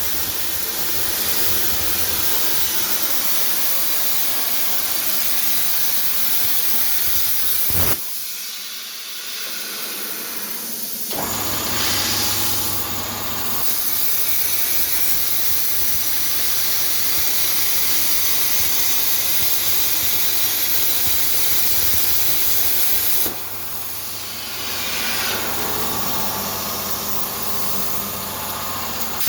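Metal fabrication equipment giving a loud, steady hiss over a low electrical hum, changing abruptly a few times (near 8, 11 and 23 seconds) as the sound switches between clips.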